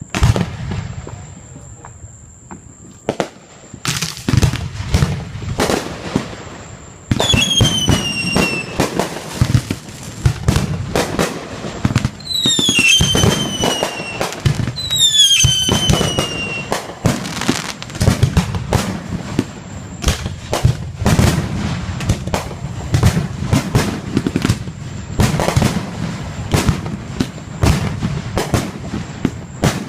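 Fireworks display: a steady run of bangs and crackling bursts with low rumbling booms. Three falling whistles rise above it partway through.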